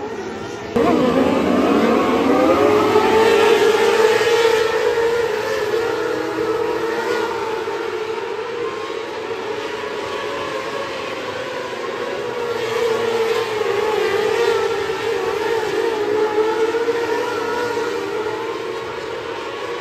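A field of winged 600 micro sprint cars racing around a dirt oval, their 600cc motorcycle engines running at high revs. The combined engine whine rises sharply about a second in and then wavers up and down as the cars go through the turns and down the straights.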